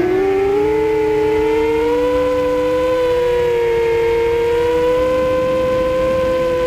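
Quadcopter's electric motors and propellers whining, heard from the camera on the drone itself: several steady tones that dip in pitch right at the start, then drift slowly up and down as the drone manoeuvres.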